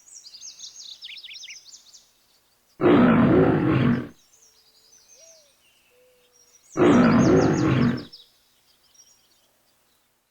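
A lion roaring twice, each roar about a second and a half long and about four seconds apart, with small birds chirping in the background.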